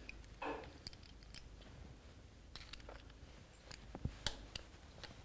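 Faint, scattered metallic clicks and scrapes of a straight screwdriver working a pushrod tube retaining clip into place on a Harley-Davidson Twin Cam's chrome pushrod tube.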